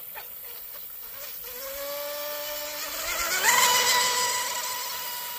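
Brushless electric motor of an RC outrigger hydroplane boat whining on a high-speed pass. The whine starts faint and climbs in pitch, then jumps higher and is loudest about three and a half seconds in, with the hiss of spray. After that it holds its pitch and slowly fades.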